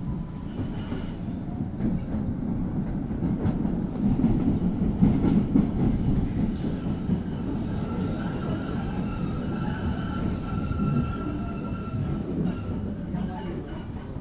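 MBTA train running on the rails: a dense low rumble that swells around the middle. From about eight seconds in to near the end, a thin wheel squeal sounds over it.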